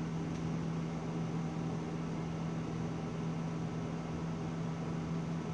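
Steady low hum with a faint hiss underneath: constant background room noise, unchanging throughout.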